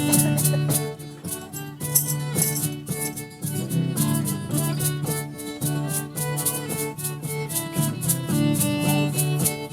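Music: a lively Irish jig tune with a quick, even beat of rattling percussion under the melody.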